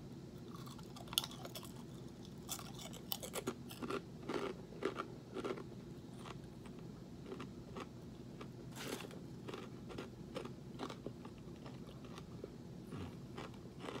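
A person chewing crunchy microwaved pork rinds: a long run of irregular crunches. The piece is darker and a little overcooked, with harder spots.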